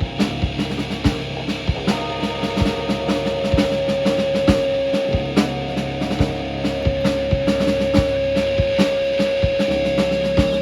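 Live rock band playing loud: drum kit beating a steady rhythm under electric guitar and bass. From about a third of the way in, one high note is held without a break.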